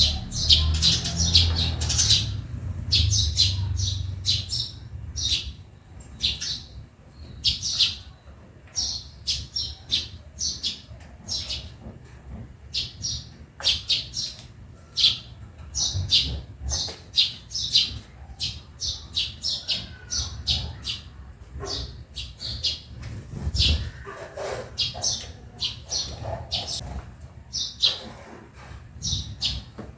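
Sparrows chirping: a steady stream of short, high chirps from several birds, several a second, with a low rumble underneath for the first few seconds.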